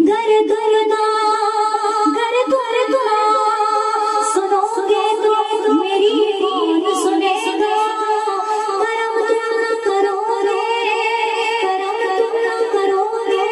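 A woman singing a devotional naat unaccompanied, in long held notes with a wavering pitch.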